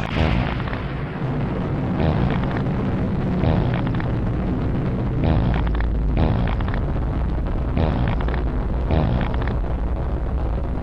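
A long, loud, exaggerated fart sound effect: a continuous heavy low rumble broken by sputtering, pitched blasts every second or two.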